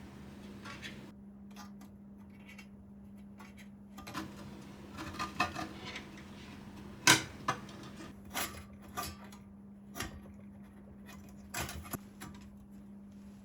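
Scattered light metallic clicks, clinks and knocks of computer parts being handled and fitted into an aluminium PC case, with one sharp click about seven seconds in. A steady low hum runs underneath.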